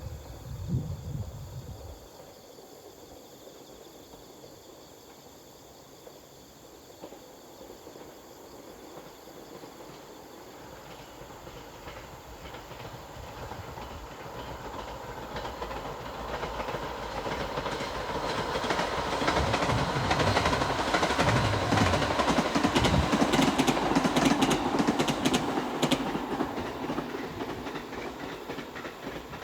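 Echigo Tokimeki Railway ET127 series electric train approaching and passing. Its sound builds over about twenty seconds, the wheels click over the rail joints as it goes by, and then it fades away.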